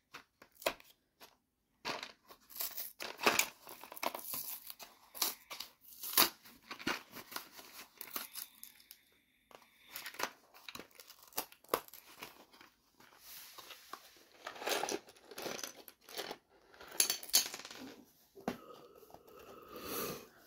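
LEGO minifigure blind-bag packet being torn open and crinkled by hand: irregular crackling and rustling of the foil packet, with brief pauses.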